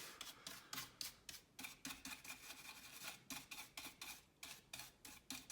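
Brush bristles flicking dust out of an opened laptop's insides: a faint run of quick, irregular scratchy clicks, a few a second.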